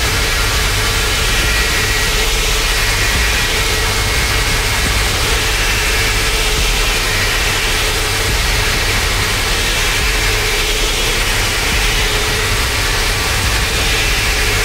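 Dense, steady electronic noise: hiss across the whole range over a low rumbling drone, with a faint steady tone in the middle. The upper range swells gently every four seconds or so. It is a harsh noise or drone music piece.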